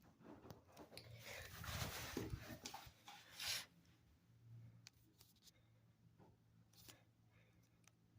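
Rustling and rubbing noise for a couple of seconds, loudest about three and a half seconds in, then a few faint clicks over a low steady hum. No siren is sounding.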